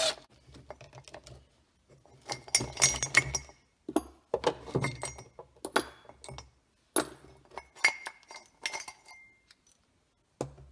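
Loose metal parts from a dismantled electric engine governor clinking and clattering as they are handled and set down, in several short clusters, some clinks ringing briefly.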